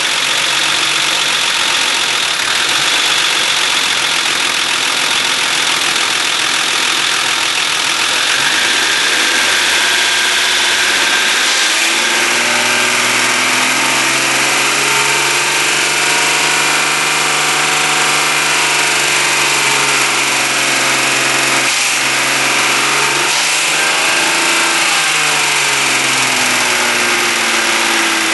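BMW E39 engine running with a persistent noise that the owner suspects comes from the lifters or the VANOS camshaft system. Its speed rises gradually about ten seconds in, holds, and drops back to idle near the end.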